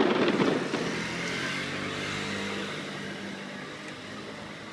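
Fireworks bursting in the sky: a loud boom at the start, followed by a long rumble that slowly dies away.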